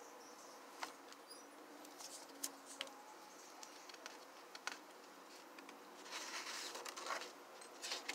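Quiet handling of a disc-bound journal: a few soft clicks and taps, then paper rustling from about six seconds in as pages are turned.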